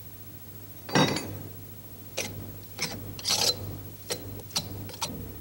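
A hand tool scraping and smoothing rammed moulding sand in a sand-casting mould box as loose sand is cleared from around the pattern: about seven short scrapes, the first and loudest about a second in.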